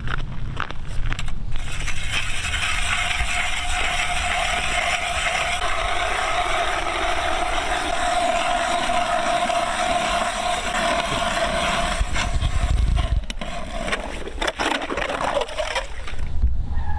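Hand-cranked ice auger boring through pond ice: a steady grinding scrape with a tone running through it, which stops about thirteen seconds in as the hole breaks through and the auger is pulled out.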